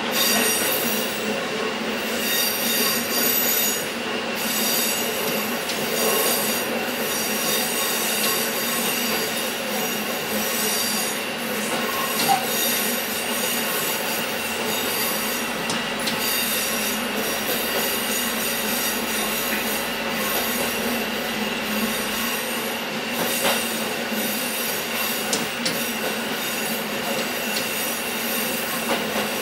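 KiHa 11 diesel railcar running along the line: steady running noise with high whining tones over it, and a few sharp knocks from the wheels.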